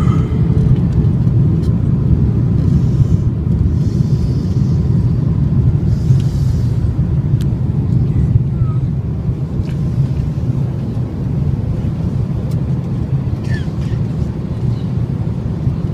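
Airliner cabin noise on descent: a steady, loud low rumble of engines and airflow, easing a little in the second half.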